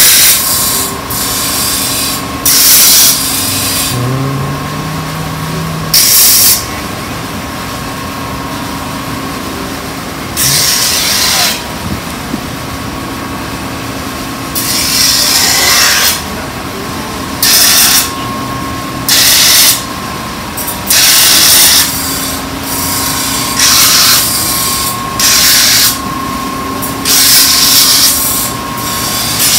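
A hand-forged Sakai kitchen knife's blade pressed against a motor-driven sharpening wheel in about a dozen gritty strokes of roughly a second each, over the wheel motor's steady hum, as the hard-steel layer is ground flat.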